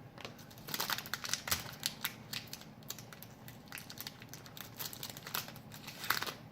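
Hockey trading cards and their pack packaging being handled: a run of crisp crinkles and clicks as cards are shuffled and moved, with the sharpest ones about a second in and near the end.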